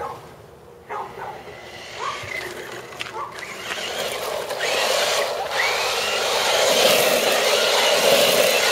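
Electric RC truck driving, its motor whining and tires hissing and grinding over the ground, growing louder from about four seconds in. Before that come a few short whining cries.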